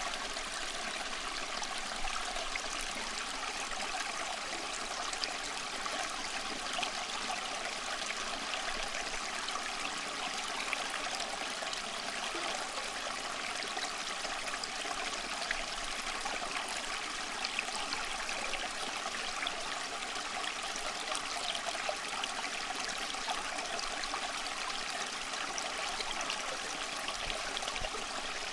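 Steady, unchanging sound of running water, like a flowing stream.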